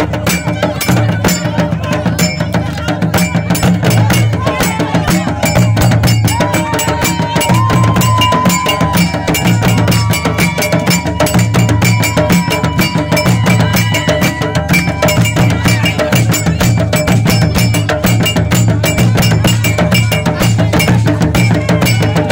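Traditional Malian drumming for dancing: hand drums playing a fast, driving rhythm with a metallic clanking percussion line over it. A long high held note sounds over the drums from about six seconds in.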